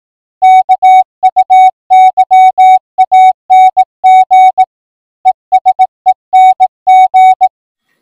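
Morse code: a single steady beep near 750 Hz keyed on and off in short dots and longer dashes, loud, for about seven seconds, with a brief break about two thirds of the way through.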